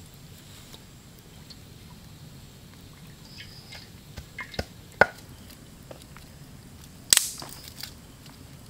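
Scattered knocks and taps of cooking utensils and food being handled: a few light taps about four seconds in, a sharp knock a second later, and the loudest clatter about seven seconds in.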